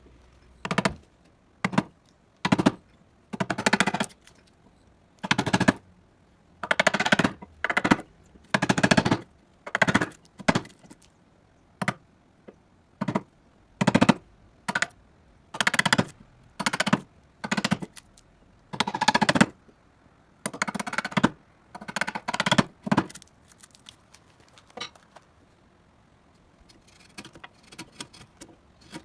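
Wood being cut for the female half of a seated dovetail joint: about twenty short, loud bursts of cutting, separated by short irregular pauses, that stop about 23 seconds in. Only a few faint small clicks follow.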